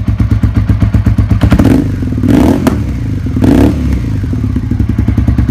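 Suzuki SV650's V-twin engine running loudly with a lumpy, pulsing beat, revved twice: once about a second and a half in and again past three seconds.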